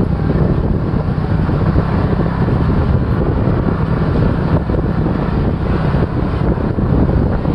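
Can-Am Maverick Sport XRC's Rotax V-twin engine running steadily as the side-by-side drives along a dirt trail, with wind buffeting a microphone mounted on the outside of the machine.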